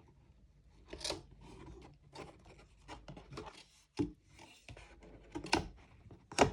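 Cardboard and paper packaging being handled: rubbing and scraping with a few sharp knocks and clicks as items are lifted out of the box.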